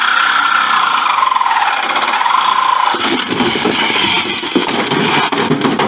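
A loud power tool working on a Jeep door. Its whine sinks slowly in pitch over the first three seconds, then gives way to a rougher, noisier sound.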